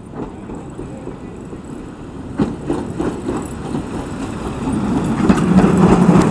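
Steam locomotive running tender-first over a level crossing, growing louder as it approaches. Its wheels click over the rail joints a few times from about two and a half seconds in, and a steady low hum builds near the end as it draws level.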